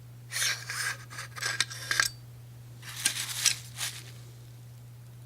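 Metal sliding and scraping as an AR-15 bolt carrier group is worked out of the upper receiver, in three rasping bursts with a sharp click about two seconds in.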